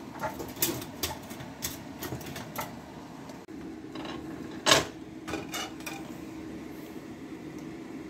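Cooking oil heating in a non-stick frying pan, giving off scattered small ticks and pops, with one louder pop a little past the middle. A faint steady hum joins about halfway through.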